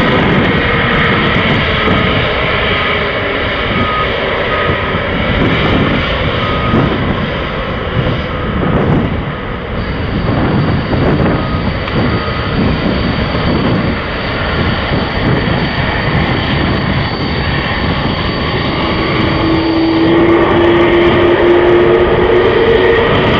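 Rolls-Royce Trent 1000 turbofans of a Boeing 787-8 Dreamliner running steadily as the jet rolls on the runway. Near the end a whine rises in pitch as the engines spool up for takeoff.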